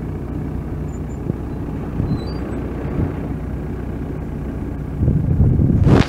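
Komatsu WB146-5 backhoe's 4.5 L four-cylinder turbo diesel (S4D102LE-2) running steadily with a low rumble, louder briefly near the end.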